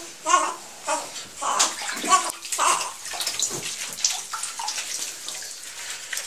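Bathwater splashing and sloshing in a shallow bathtub as an adult's hand moves through the water and a washcloth while bathing a newborn in a baby bath seat.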